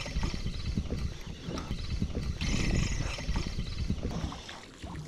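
Wind buffeting the microphone over the handling noise of a spinning rod and reel as a hooked reef fish is wound in, with a short spell of hiss about two and a half seconds in.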